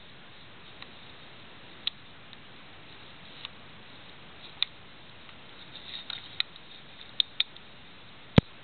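Exposed mechanism of a post office mailbox door's three-digit combination lock worked by hand: a scattering of small, separate metal clicks from the drive cam and lever, and one sharper, louder click near the end.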